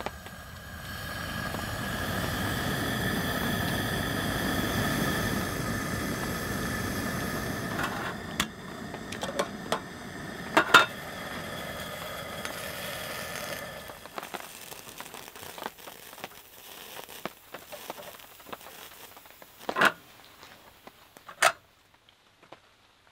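Canister gas stove burning under a metal kettle as the water heats: a steady hiss with a few high tones through it, which stops about two-thirds of the way through. Several sharp metal clinks follow as the kettle and its lid are handled.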